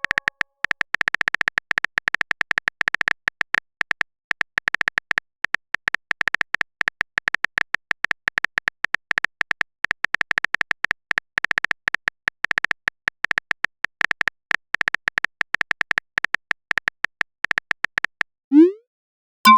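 Rapid, irregular clicks of a phone-keyboard typing sound effect, several a second, each a short sharp tick, as a message is typed out. Near the end comes a short rising swoop.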